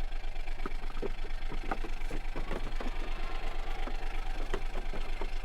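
Engine idling steadily with an even throb about five times a second, with a few light knocks over it.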